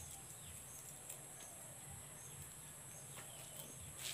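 Faint insect chirping, likely crickets: a steady high trill with soft short chirps repeating about every second. A few faint light rustles.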